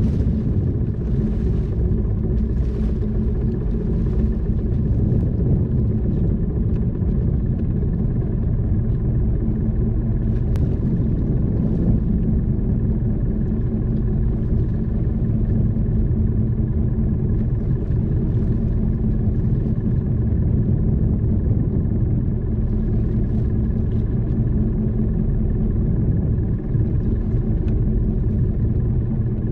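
Fishing boat's engine running steadily, a low, even drone.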